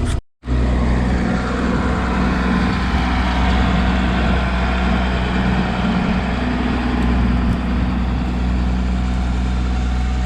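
Combine harvester running steadily in the soybean field, a constant low engine drone. The sound drops out completely for a moment right at the start.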